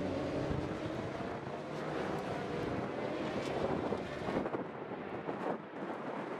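Superbike racing motorcycle engine at full throttle, its pitch climbing steadily for about four seconds as it accelerates, then giving way to rougher engine and wind noise on the microphone.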